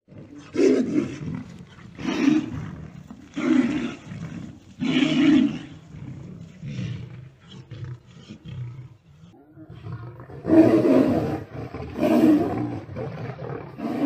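Big cat roaring in a series of deep calls about a second and a half apart: four in the first five seconds, then after a quieter stretch two more, the loudest about ten and a half seconds in.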